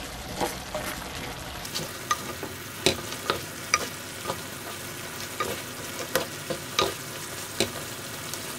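Wooden spoon stirring chicken and rice cakes through a thick, simmering sauce in a nonstick pan, over a steady sizzle as the sauce reduces. Irregular short knocks and scrapes where the spoon hits the pan.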